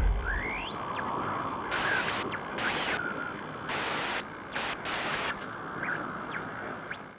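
Static-like hiss with short rising whooshes. Loud bands of high hiss cut in and out abruptly several times, and the last of a deep boom dies away at the start. It all stops suddenly at the end.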